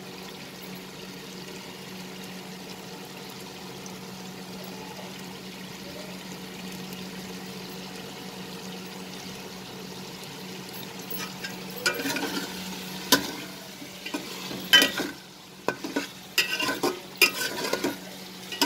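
Chicken and potatoes in masala sizzling gently in a steel pot over a steady low hum; from about twelve seconds in, a flat steel spatula scrapes and knocks against the pot in irregular strokes as the mixture is stirred and sautéed.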